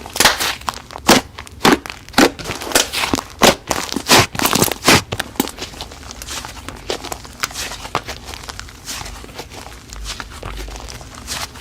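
Slime being squeezed and pressed by hand, giving a run of sharp crackling clicks and pops. The clicks come thick and loud for about the first five seconds, then turn fewer and softer.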